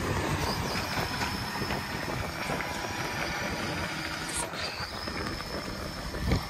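A side-loading recycling truck's diesel engine running as the truck drives away, its rumble slowly fading, with a thin steady high whine over it. A single sharp click about four and a half seconds in.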